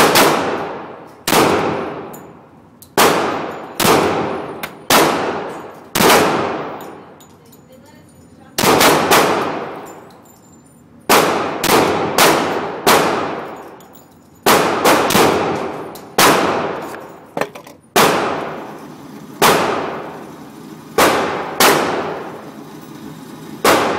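Glock 20 SF pistol firing 10mm Auto, about two dozen shots in unhurried strings with some quick doubles and triples, each shot trailing off in a long ringing echo.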